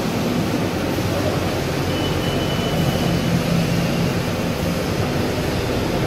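Steady machine whir of a running tunnel-type microwave sterilization machine, its fans and conveyor belt going, with a low hum underneath.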